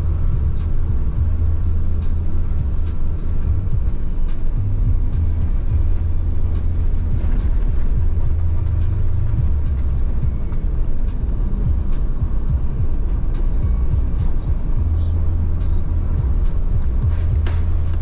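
Car driving along a road: a steady low rumble of engine and road noise, with scattered small clicks and knocks.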